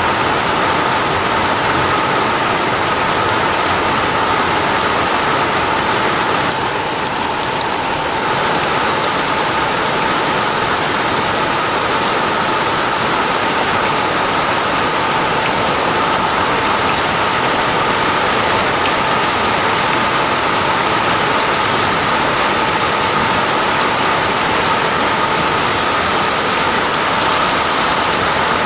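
Steady rain falling as a dense, continuous hiss, briefly softer about seven seconds in.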